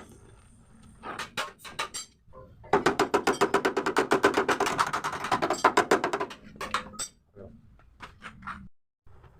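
Hammering on the sheet-metal body of a Mitsubishi L300: a few separate ringing knocks, then a fast run of strikes for about three and a half seconds, then scattered knocks again.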